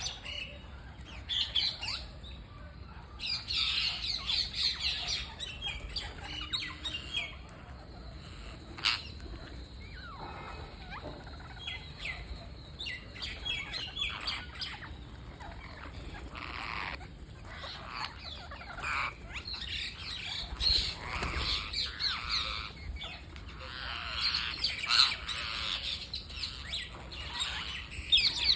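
Green parrots chirping and squawking in quick, overlapping bursts, with busy spells of calls separated by quieter gaps, and one sharp click partway through.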